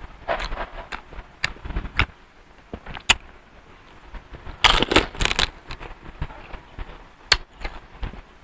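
Eating sounds from crisp fried kwek-kwek (orange-battered quail eggs) picked up by hand and chewed: scattered crackly clicks, with a louder cluster of crackles about five seconds in and a single sharp click near the end.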